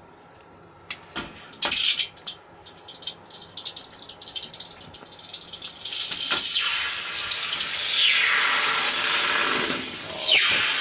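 Gloved hand pulling freshly cast fine-silver pieces out of a Delft clay mold, with a few clicks and rattles. Then a steady sizzle as the still-hot castings quench in a tray of water, louder from about six seconds in, with falling whistling sweeps in it.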